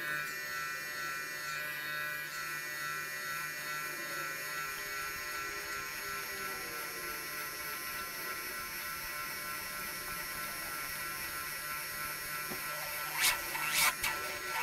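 Hotsy 555 pressure washer running with a steady electric hum and buzz as antifreeze is pumped through it and out of the trigger gun to winterize the pump, bypass, coil and hose. A few short louder bursts come near the end.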